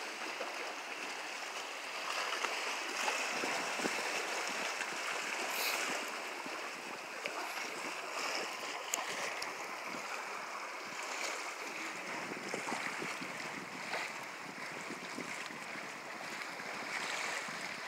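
Steady wash of small waves against shoreline rocks, with wind, and a few faint short clicks.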